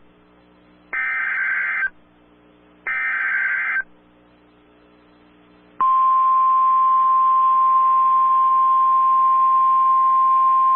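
NOAA Weather Radio alert signalling, opening a new warning. First come two short bursts of warbling SAME digital header data, about a second each and a second apart. About six seconds in, the steady 1050 Hz attention tone starts and holds.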